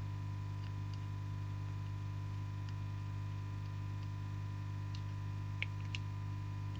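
Small scattered ticks and clicks of a screwdriver turning the screws of a chainsaw carburettor being put back together, with two sharper clicks near the end, over a steady low hum.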